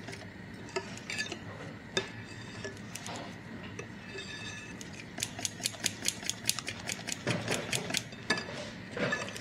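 Wire whisk beating eggs and sugar in a ceramic bowl, its wires clicking against the bowl's side as the sugar is worked in to dissolve. The clicks are sparse at first, then come quick and even, several a second, from about five seconds in.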